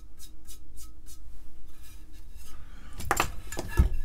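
A heavy cast stone or ceramic slab, missing one of its feet, is set down on a workbench. Near the end come a clatter of hard knocks and two heavy thumps, after faint light ticking about three times a second.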